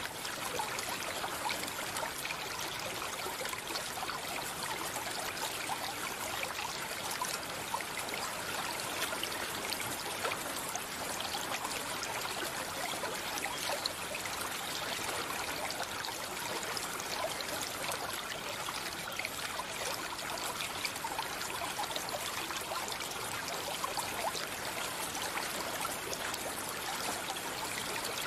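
Stream water running steadily, a continuous babble of flowing water.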